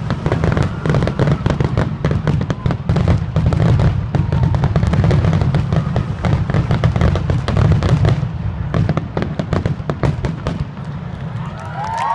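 Fireworks grand-finale barrage: a dense, rapid string of shell bursts and crackling over a heavy low rumble, thinning out about eight seconds in and dying away near the end.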